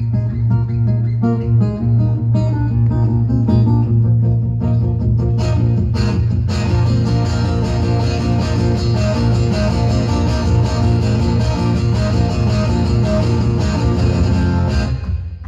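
Solo acoustic guitar played live and loud: fast picked runs over a low ringing bass note, thickening into dense strumming about six seconds in, and easing off just before the end.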